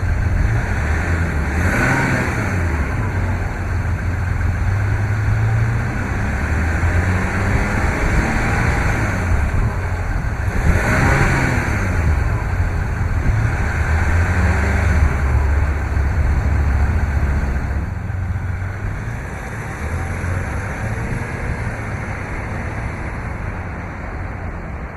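Motor vehicle engine running, its pitch rising and falling as it changes speed, with two louder swells of road noise about two seconds and eleven seconds in.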